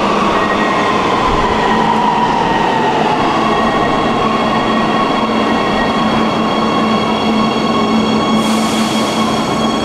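Warsaw Metro train running, a loud steady rumble with an electric whine that slides down in pitch over the first few seconds and then holds. Near the end the whine tones start to climb as the train speeds up, with a short hiss just before.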